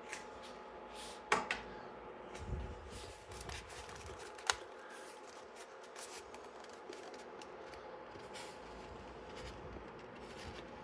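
Light handling of a plastic action figure: a few sharp small clicks and soft rustling, over a faint steady hum.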